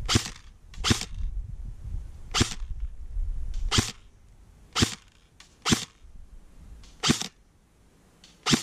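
King Arms Black Rain Ordnance airsoft electric gun (AEG) firing single shots, about eight of them, roughly a second apart.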